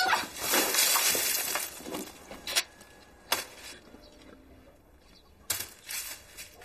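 Grain spilling and scattering from a large round winnowing basket as it is dropped, a dense rustling clatter lasting about two seconds. A few sharp single knocks follow.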